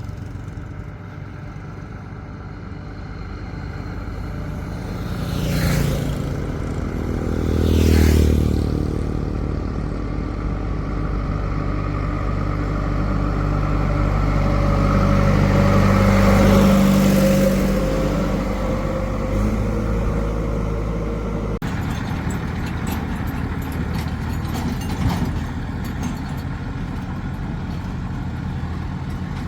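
Diesel engines of a backhoe loader and tractors working, running steadily and picking up speed under load in a few surges, strongest about halfway through. The sound changes abruptly about two-thirds of the way through.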